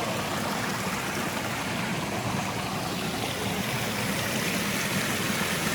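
Stream water rushing steadily over rocks at a small waterfall and rock slide.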